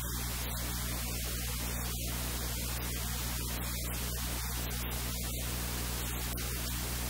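Steady static hiss with a low electrical hum underneath, unchanging in level.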